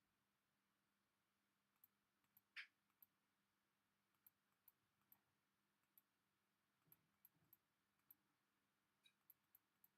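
Faint computer mouse clicks, about fifteen of them at irregular intervals over near silence, with one slightly louder, longer click a few seconds in.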